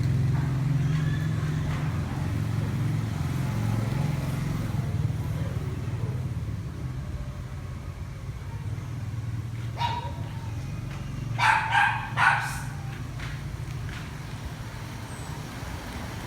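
A dog barks once, then three quick barks follow about a second and a half later, over a steady low hum that slowly fades.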